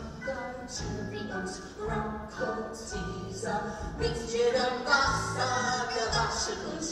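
Stage-musical duet: singing in short, quick phrases over instrumental accompaniment.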